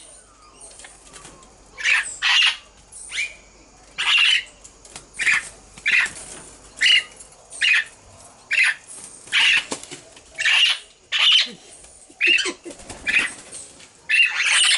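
Princess parrots giving short, harsh squawks, one or two a second, starting about two seconds in.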